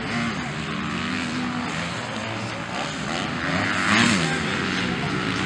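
Several motocross bikes' engines revving on the track, their pitch rising and falling with throttle and gear changes. One bike swells loudest about four seconds in, its pitch climbing then dropping.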